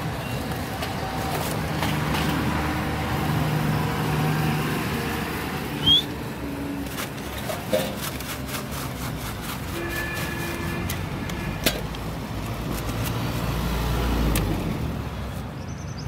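Road traffic running steadily, with a few sharp clinks of a steel spoon against a steel bowl. A brief rising squeak comes about six seconds in, and a vehicle rumbles past near the end.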